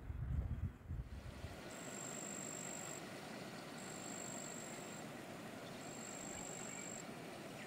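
Wind buffeting the microphone with low rumbles. Then, after a cut, a steady outdoor hiss with a high-pitched insect trill that repeats in bursts of about a second, three times and starting again near the end.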